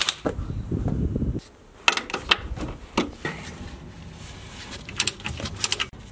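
Sharp metal clicks and clinks from a long socket wrench working the lower mounting bolt of a rear coilover, a few single knocks followed by a quick cluster near the end. A low rustle of handling fills the first second or so.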